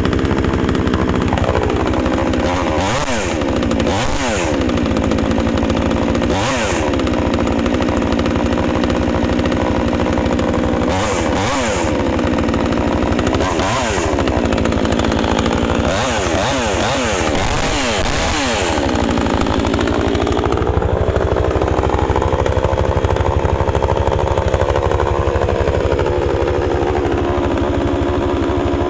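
Vevor 58cc two-stroke gas chainsaw running, its throttle blipped again and again so the engine revs up and falls back. From about two-thirds of the way through it holds a steadier high speed.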